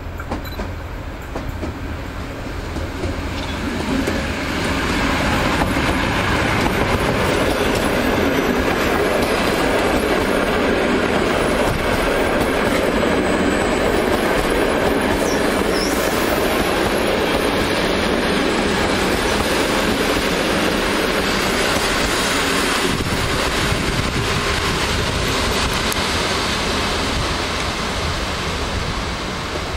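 PKP Intercity EU160 electric locomotive and its train of passenger coaches running past along the platform. It is a steady rumble of wheels on rail that builds over the first few seconds, stays strong, and eases near the end.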